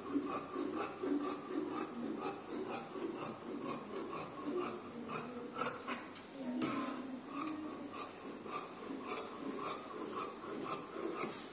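Large tailoring scissors cutting through doubled cotton fabric, closing in a steady run of snips about two to three a second.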